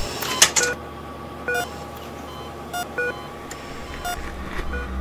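A string of about eight short electronic beeps at differing pitches, irregularly spaced, over a faint steady hum, with a low rumble building near the end.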